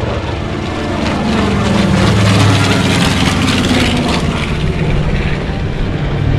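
Piston-engined propeller warplanes flying past in formation. Their engine drone swells to a peak about two seconds in and then eases off.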